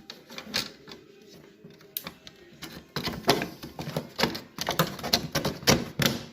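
Irregular clicking and tapping of thin sheet-metal brackets being handled and fitted into place. The clicks are sparse at first and come quickly, several a second, from about halfway through, then stop suddenly.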